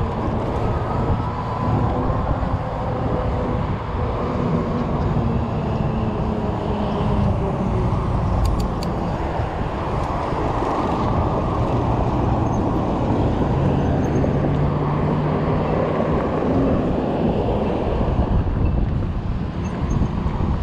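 Steady rumble of riding a 48 V fat-tire e-bike along a sidewalk, with road traffic passing on the adjacent street. A few faint light clicks come about eight and a half seconds in.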